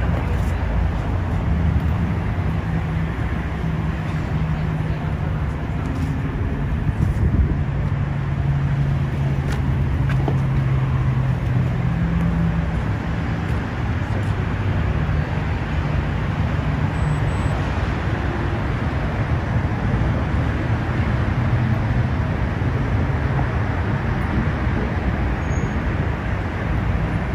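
Steady low rumble of vehicle noise, with no clear start or stop.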